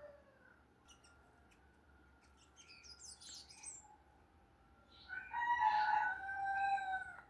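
Small birds singing: faint high chirps in the first few seconds, then a louder, drawn-out call of about two seconds near the end that drops slightly in pitch as it ends.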